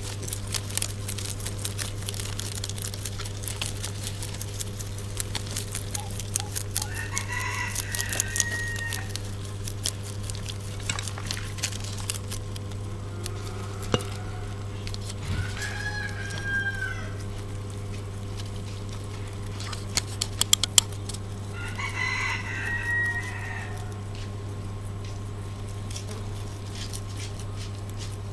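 A rooster crows three times, each crow lasting about a second and a half, over a steady low hum and a run of small sharp clicks and crackles.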